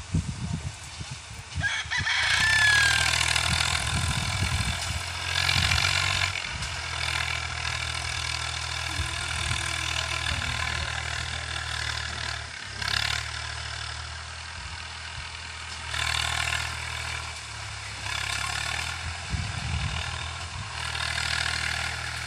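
Swaraj 744 FE tractor's three-cylinder diesel engine working under load, pulling a trolley heaped with sugarcane. It comes up loud about two seconds in, and its revs swell and ease several times.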